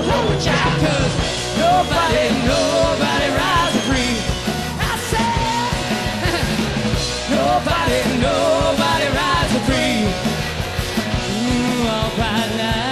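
Loud rock band playing, a singer holding notes with a wide vibrato over the full band.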